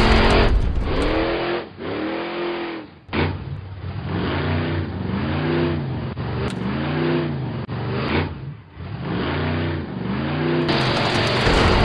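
Cartoon monster truck engine sound effect, revving up and down over and over in quick swells of pitch, with a louder, rougher engine burst at the start and again near the end.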